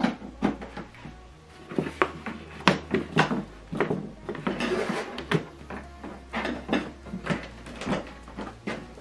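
Handling noise from a compact plastic soundbar and its cables being lifted, shifted and set back down on a cardboard box: a run of irregular knocks and bumps, with a brief scrape about halfway through.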